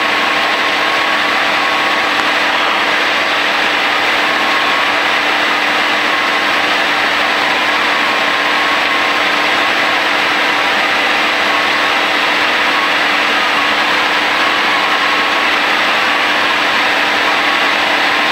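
Single-engine Cessna's engine and propeller droning steadily inside the cabin at reduced power on final approach.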